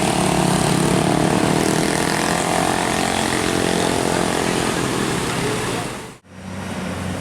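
Large bus engine running close by with voices mixed in; the sound cuts off abruptly about six seconds in and comes back quieter.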